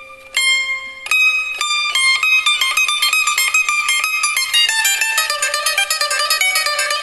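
Background music on a plucked string instrument: a few separate notes, then a quick, busy run of notes from about two seconds in.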